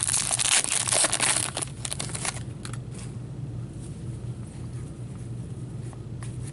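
Hockey card pack wrapper crinkling and tearing as it is opened, loudest for the first couple of seconds. It is followed by quieter rustling and a few light clicks of cards being handled.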